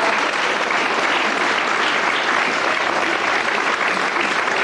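Studio audience applauding steadily, a dense sustained clapping that runs through without a break.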